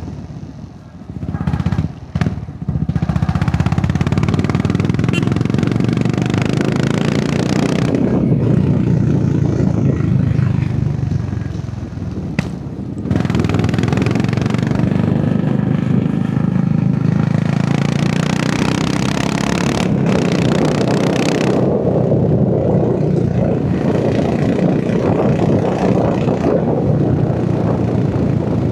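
Royal Enfield Hunter 350's single-cylinder engine and exhaust running under way on the road. The sound eases off near the start and again about twelve seconds in, then pulls steadily again.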